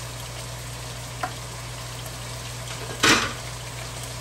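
Ground beef and diced onion sizzling steadily in a stainless steel skillet on high heat, with a faint click just over a second in and one short, louder scrape about three seconds in.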